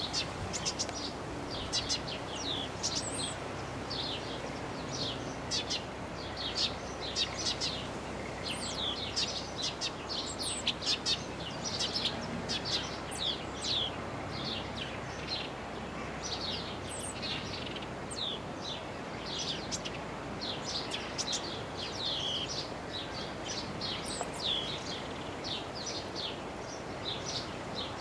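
Eurasian tree sparrow singing: a long, steady run of short, sharp chirps, several a second.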